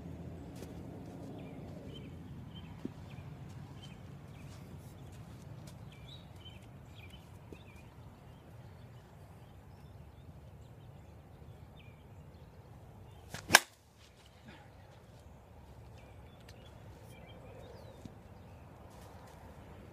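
A single sharp crack about two-thirds of the way in: an Avarice G2 slow-pitch softball bat hitting a ball off a batting tee.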